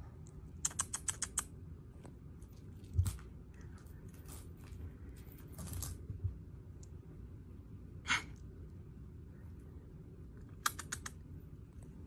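Kittens batting and pouncing on a small toy on carpet: two short runs of rapid clicking, about a second in and again near the end, a dull thump about three seconds in, and scattered light scuffs and taps.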